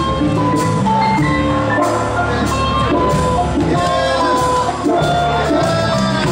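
Live band playing rock with electric guitars, bass and drums. A lead line of held and sliding notes rides on top.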